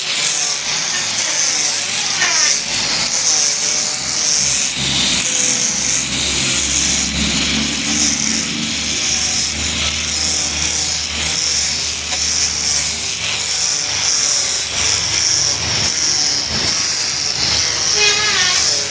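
Steady rubbing on wood as a wooden strip is polished or sanded, a continuous scratchy hiss.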